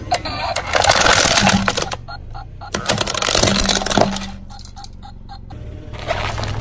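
Hard plastic toy cracking and snapping as a car tyre rolls over and crushes it, in bursts of crackling over the first four seconds, then quieter.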